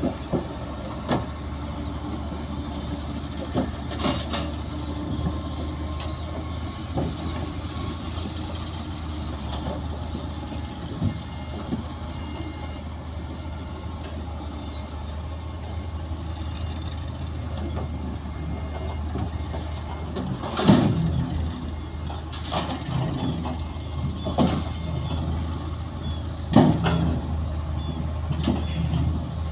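Bulldozer's diesel engine running steadily, with scattered short knocks and clanks. The clanks are louder and come every couple of seconds in the last third.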